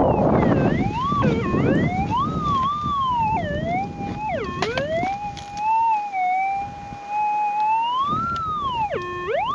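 Minelab GPX 6000 gold detector's audio tone swelling and sliding up and down in pitch as the coil is swept back and forth over a target, the strong "big boy noise" of a gold nugget. A burst of rough noise sits under the tone in the first couple of seconds.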